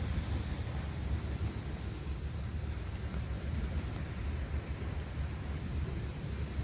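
Ocean surf on a beach, a steady low rumble with a faint hiss over it.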